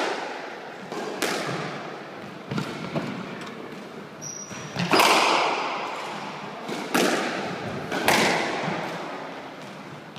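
Squash ball being struck by rackets and hitting the court walls: sharp, echoing smacks every one to two seconds, several in all. A brief high squeak comes about four seconds in.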